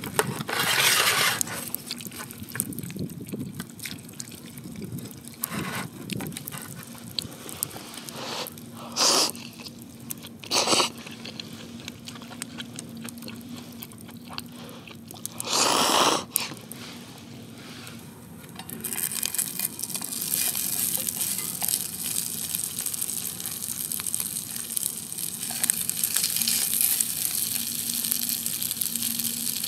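A few short handling noises, then, from about two-thirds of the way in, a steady sizzling hiss from gyoza frying in a pan on a Trangia storm cooker.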